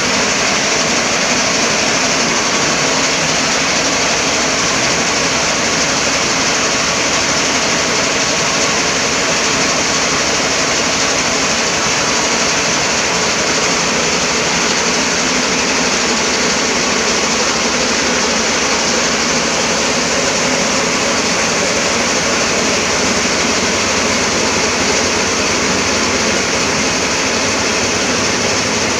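Corn harvesting machine running steadily, a loud, even engine and machinery noise.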